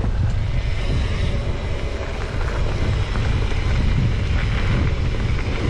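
Wind buffeting the microphone of a mountain bike's handlebar camera while riding a leaf-covered dirt trail, over a steady low rumble of tyres and the bike rattling.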